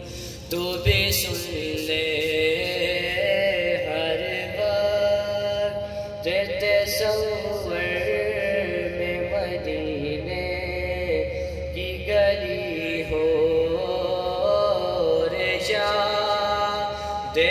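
A male naat reciter singing an Urdu devotional naat in praise of the Prophet, with long held notes that bend and waver in ornamented runs, pausing briefly between phrases.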